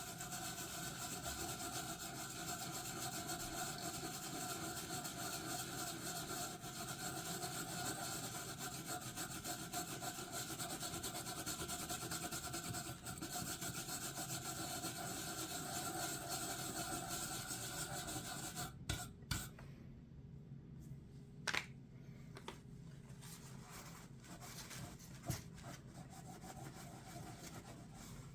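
A small brush scrubbing steadily over the lettered metal knob of an old Aladdin lamp. It stops abruptly about 18 seconds in, and a few light taps and clicks follow.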